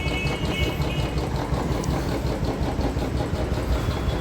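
Royal Enfield Electra's single-cylinder engine idling with an even, steady beat through its stock silencer, which the owner presents as smooth and free of knocking.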